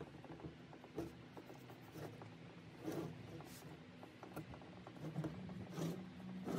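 Shop rag rubbing and wiping over the aluminum cylinder head and rocker box of a Harley-Davidson shovelhead engine, in short faint rustles with small knocks as the head is handled, over a low steady hum.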